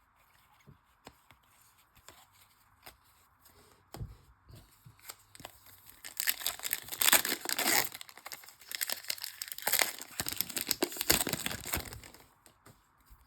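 Wrapper of a Bowman Chrome baseball card pack being torn open and crinkled, starting about six seconds in and running until near the end. Before that there are a few soft taps of cards being handled.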